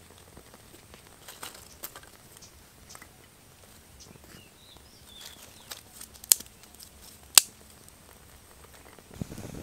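Dry twigs crackling and snapping as a small twig fire is fed by hand, with scattered light clicks and two sharp snaps about six and seven seconds in, then a burst of rustling crackle near the end. Faint bird chirps in the background.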